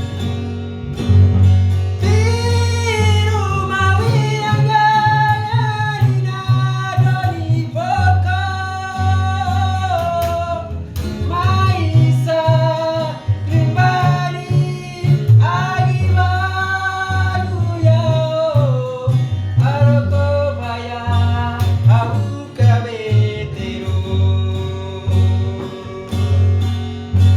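A song: a voice singing in phrases over plucked guitar and a steady, repeating bass line.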